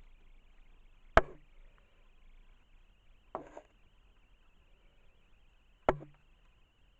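Three sharp knocks, roughly two seconds apart; the first is the loudest and the middle one is softer.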